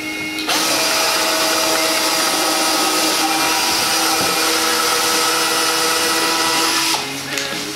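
Power drill running steadily into the wooden mortar rack, starting about half a second in and cutting off suddenly near the end.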